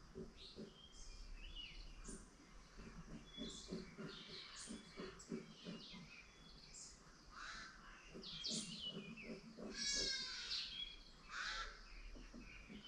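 Several birds chirping and trilling over one another in quick short notes, with a dense high trill about ten seconds in. A low, rapidly repeated animal call runs underneath.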